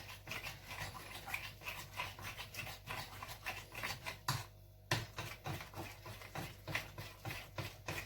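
Pancake batter being stirred in a bowl: a utensil scrapes against the bowl in quick repeated strokes, about three or four a second, with a brief pause about four and a half seconds in.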